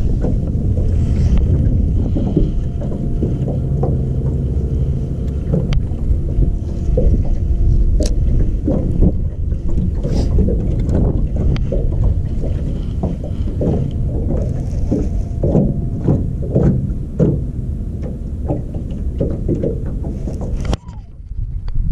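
Wind buffeting the microphone with a low rumble, while small waves slap irregularly against the boat's hull; a faint steady hum sits under it for the first half.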